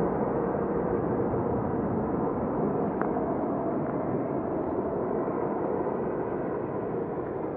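Rolls-Royce Trent 700 jet engines of an Airbus A330-343 during its landing rollout: a steady rushing jet noise that slowly fades as the airliner moves away.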